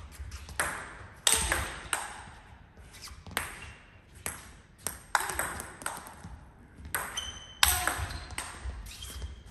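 Table tennis rally: a celluloid-type ping-pong ball clicking sharply off rubber bats and the table in quick, irregular succession, with a short lull about halfway through.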